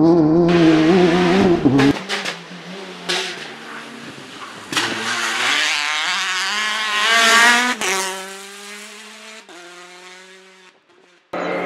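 Rally car engines at full effort. A loud car runs at high revs, then the sound cuts to another car whose engine climbs steadily in pitch as it accelerates and then fades away. Another loud car cuts in abruptly near the end.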